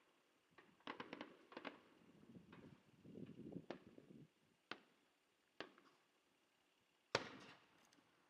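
Fireworks going off at a distance in scattered bursts: a quick run of pops about a second in, a crackle over a low rumble a little later, then single sharp cracks, and the loudest bang near the end with a short echoing tail.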